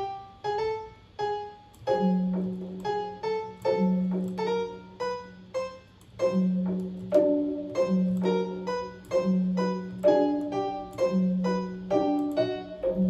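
Looped piano sample playing a melody of short notes at about two to three a second, each trimmed to stop quickly. A lower held note joins about two seconds in and recurs every second or two.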